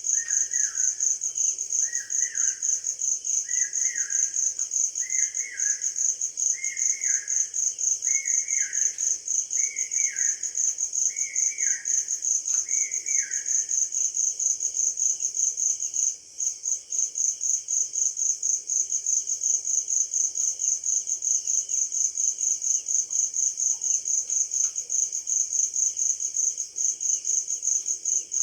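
Crickets chirping in a high-pitched, fast and even pulsing rhythm throughout. A bird repeats a short falling call about every second and a half, stopping about halfway through.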